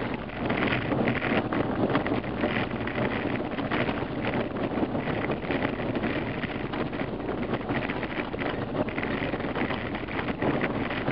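Off-road 4x4 driving along a gravel road: steady engine and tyre rumble mixed with wind noise, with many small crackles from the loose surface under the tyres.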